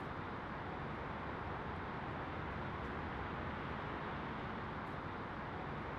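Steady, even rushing background noise with a low hum underneath, unchanging throughout.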